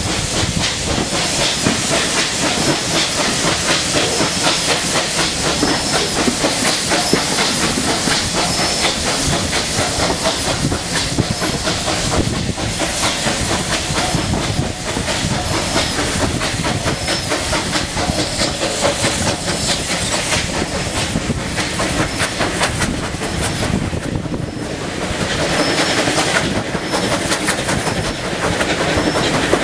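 Steam train running, heard from beside the carriages: steady steam hiss over the clatter of the coach wheels on the rails.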